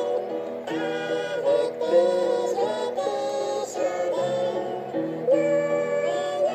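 A song sung in high-pitched, chipmunk-style voices over instrumental backing.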